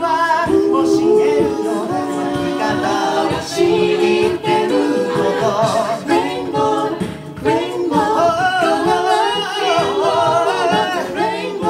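Six-voice a cappella group singing a pop song in close harmony: a lead voice over sustained chorus chords, a bass vocal line, and beatboxed vocal percussion keeping the beat.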